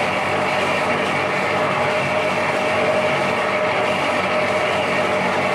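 Electric trough mixer running steadily as it churns detergent powder: a constant mechanical drone with a steady hum over it.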